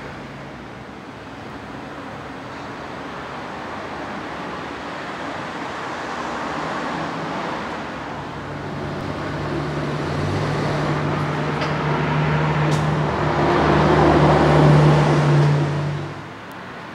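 Keihan 600-series electric train moving at a station platform: its running noise and a steady low motor hum build up and grow louder, then cut off abruptly near the end.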